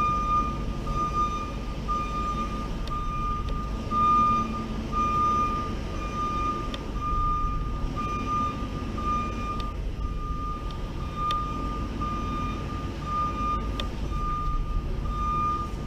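Tow truck's backup alarm beeping in an even, repeating pattern while the truck reverses, over the low, steady running of its engine.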